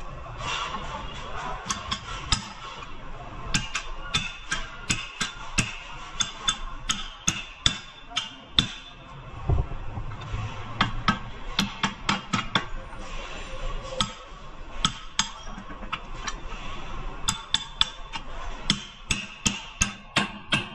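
A hammer striking repeatedly during suspension work: many sharp blows, at times in quick runs of about three a second, as when knocking out ball joints or bushings.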